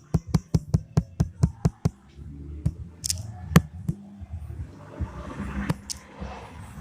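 A quick run of about a dozen sharp taps or clicks, some five a second, for about two seconds, then a few scattered single taps.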